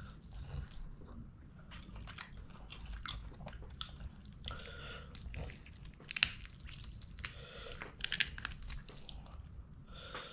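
Close-up wet squelching, tearing and crackling as bare hands pull apart curried chicken and squeeze rice with curry, with a few sharp clicks about six and eight seconds in.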